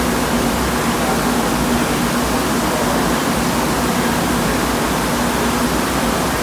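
Steady rush of air in a powder coating booth, from the booth's extraction airflow and the electrostatic powder gun spraying, with a faint low hum under it.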